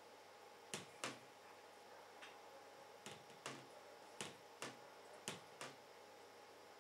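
Light clicks and taps, about ten in all at irregular spacing, as fingertips press small thermal pads down onto the power-delivery components of a GTX 780 graphics card's circuit board.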